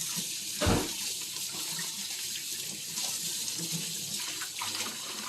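Beef sizzling and spattering on a charcoal grill, a steady hiss, with one dull thump about a second in.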